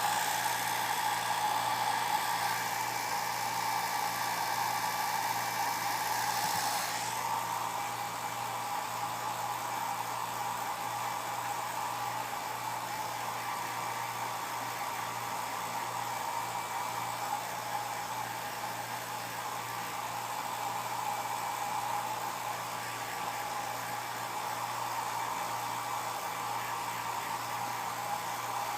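Handheld hair dryer blowing steadily on long hair, a constant whooshing hiss with a faint motor hum; the hiss is brighter for about the first seven seconds, then turns duller.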